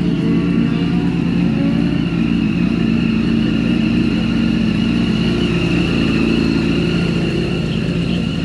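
Motorcycle engine running loud and steady at a near-constant pitch, with a few short rises and falls in pitch in the first two seconds.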